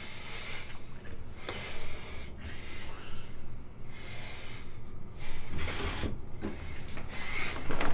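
A man breathing hard, a sharp breath in or out about once a second, over a low steady hum.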